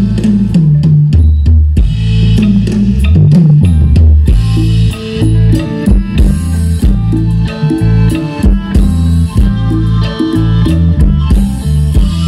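Isan pong lang band playing live: a drum kit keeping a steady beat under a busy bass line and guitar.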